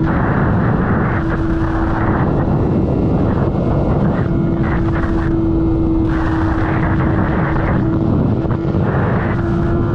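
A vehicle engine held at high, steady revs, loud and continuous, with the exhaust noise swelling and easing several times.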